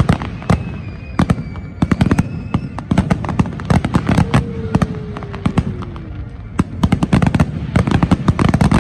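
A large aerial fireworks barrage: shells bursting in rapid, overlapping bangs and crackles, several every second.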